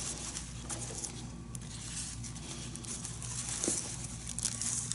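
Soft rustling and crinkling of an ankle stabilizer brace's fabric straps being handled and fastened, with light irregular ticks.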